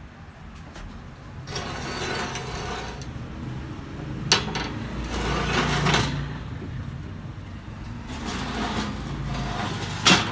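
Steel wire oven racks being handled, scraping and rattling in several short stretches, with two sharp metal clanks, one near the middle and one near the end.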